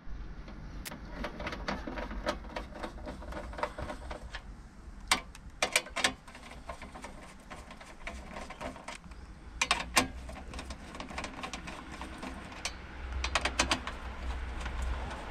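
Ratchet wrench and socket clicking while undoing the bolts of a lawn mower's recoil starter cover. A run of quick clicks, with short bunches of louder clicks three times.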